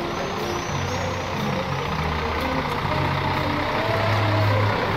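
Diesel engine of a Mercedes-Benz articulated lorry passing close at walking pace, getting louder near the end as the cab draws level.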